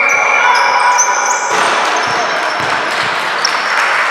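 Indoor basketball game sounds: sneakers squeaking on the court and the ball bouncing. About a second and a half in, a broad wash of noise comes in and stays.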